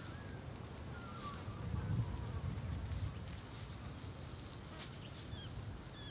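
Outdoor natural ambience: a steady high-pitched insect buzz with a few faint, short bird chirps over a low rumble.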